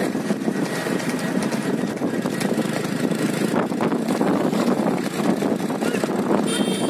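Steady engine and road noise from motorcycles and vehicles moving along together, mixed with wind rumbling on the microphone.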